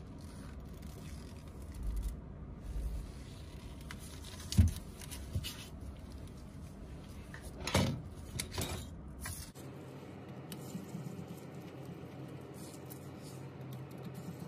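Handling sounds of an opened iPhone and small repair tools: light taps, clicks and scrapes on the table. The sharpest tap comes a little under five seconds in, and another follows about three seconds later.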